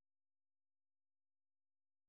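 Silence: no sound at all.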